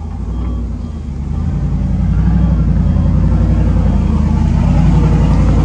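A motor vehicle's engine running loud at close range, growing louder over the first couple of seconds as it pulls up, then holding steady.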